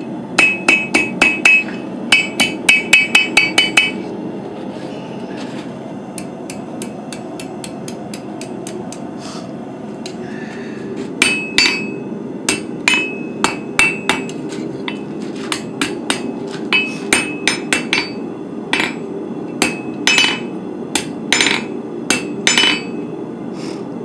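Hammer strikes on an anvil's horn, forging the curl in a hot steel meat flipper, each blow with a ringing metallic ping. The strikes come in quick runs for the first four seconds, pause for several seconds, then resume from about eleven seconds in, at roughly one to two blows a second.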